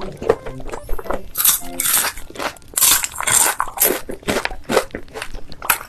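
Loud crunching bites and chewing of crispy food, mukbang-style, in irregular bursts, heaviest about one and a half and three seconds in.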